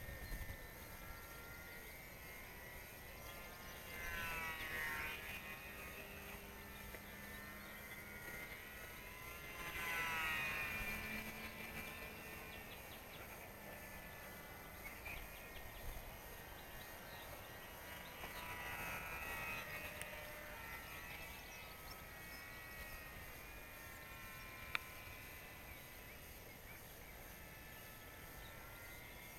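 RC model airplane's motor heard from the ground: a faint, thin whine that swells and swoops in pitch as the plane passes overhead, loudest about ten seconds in, over a low steady outdoor hiss. A single sharp click near the end.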